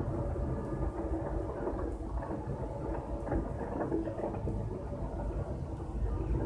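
Car road noise: a steady low rumble with a few faint knocks.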